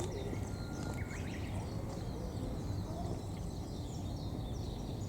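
Outdoor ambience: small birds chirping now and then over a steady low rumble of background noise.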